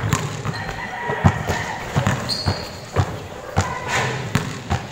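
Basketballs bouncing on a court floor: a string of sharp thuds at uneven spacing, from more than one ball being dribbled at once.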